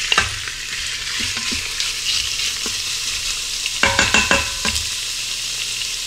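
Diced raw chicken sizzling as it hits hot oil in an Instant Pot's stainless steel inner pot on the sauté setting. About four seconds in, a wooden spatula knocks and scrapes against the pot a few times over the steady sizzle.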